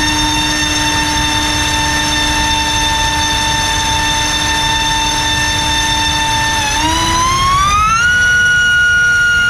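LDpower 2305 2600 kV brushless motor spinning a Racecraft 5045 tri-blade bullnose propeller on a thrust stand: a steady high whine. About seven seconds in, the whine glides up in pitch as the throttle is stepped up, then holds at the higher speed while the current draw climbs to about 24 amps.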